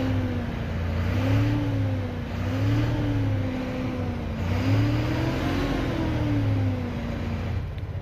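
Freshly rebuilt FAW 260 hp six-cylinder truck diesel engine, heard from the cab, being revved up and down about four times between idle and roughly 2000 rpm. The engine runs evenly, and the mechanic judges its sound fine.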